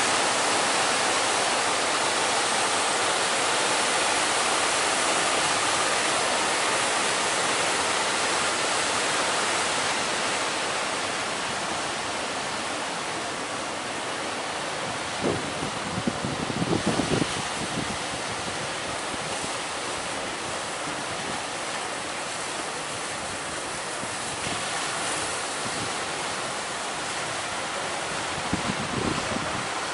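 Heavy ocean surf and strong wind, a steady rush of noise with wind buffeting the microphone, a little louder in the first ten seconds. Short clusters of low thumps come about halfway through and again near the end.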